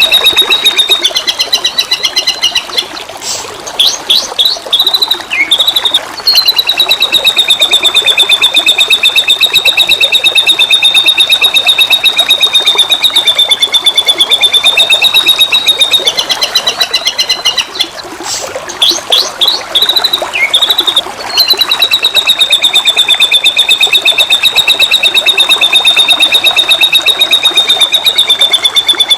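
White-rumped shama (murai batu) singing over flowing water. Long, fast trills held at one high pitch for several seconds are broken twice by a short run of quick whistled notes and slurs, and the same sequence comes round again.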